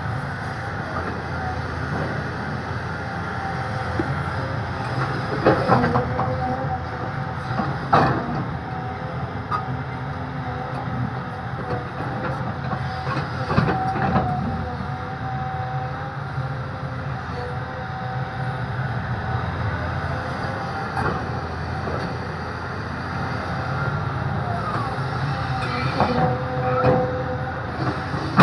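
Cat excavator's engine running steadily under load with a steady whine, broken by several sharp clanks as it digs soil.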